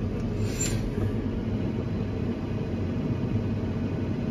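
Fendt tractor's diesel engine idling steadily at a standstill, a low even hum heard from inside the cab.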